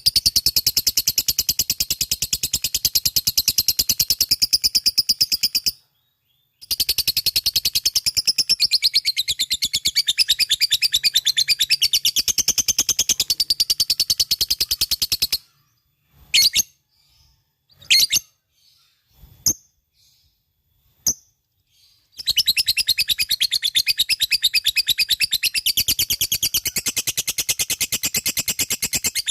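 Lovebird singing its long 'ngekek': a fast, rattling chatter of rapid high notes. It breaks off briefly about six seconds in, then falls to a few separate short chirps for several seconds in the middle before the chatter starts up again.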